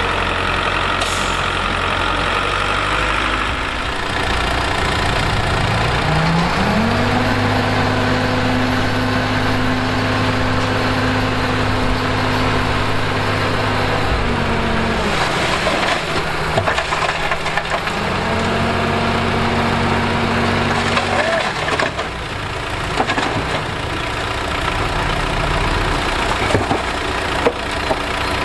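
Diesel engine of heavy earthmoving machinery running steadily. It revs up about a quarter of the way in, holds high revs for several seconds and drops back, then revs up and holds again for a few seconds past the middle.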